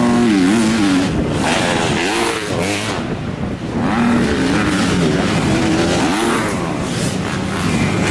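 Motocross dirt bikes racing on the track, their engines revving up and down as they accelerate and shift, the pitch rising and falling again and again.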